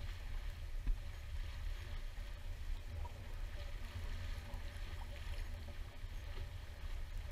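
Water rushing along the hull of a J-35 sailboat under sail, with wind rumbling on the microphone.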